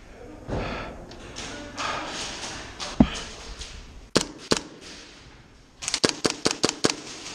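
Airsoft gun firing a quick string of about six sharp shots near the end, after a couple of single sharp cracks and a louder knock a few seconds earlier, with gear rustling in between.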